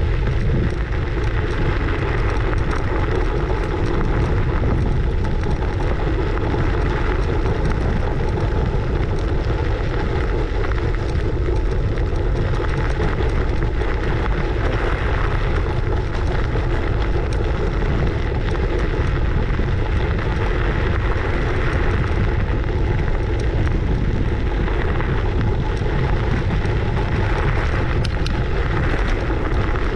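Steady wind rush on a GoPro Hero 8's microphone while riding a scooter along a road, with the rumble of the scooter's wheels on the surface.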